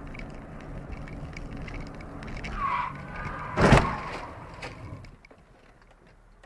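Car road noise heard from inside the cabin, then a brief tyre squeal about two and a half seconds in. About a second later comes a single loud crash of a vehicle collision.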